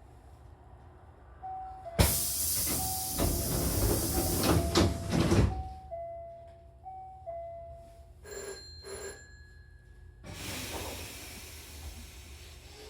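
Hankyu commuter train's pneumatic doors working: a sudden loud hiss of air with clunks about two seconds in, under a two-note chime that repeats for several seconds. Two short buzzer beeps follow, then another hiss of air as the doors move again.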